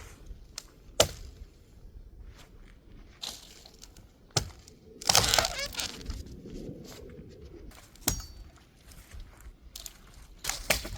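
Dry branches cracking and snapping as they are broken up for firewood: four sharp cracks spread apart, the loudest about a second in, with a longer crunching, crackling stretch around the middle.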